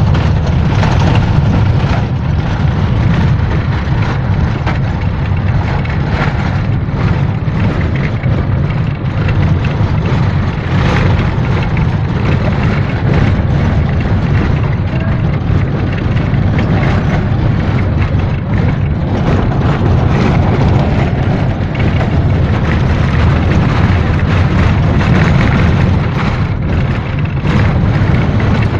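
Steady, loud rumble of a minibus driving, heard from inside the passenger cabin: engine and road noise with frequent small knocks and rattles.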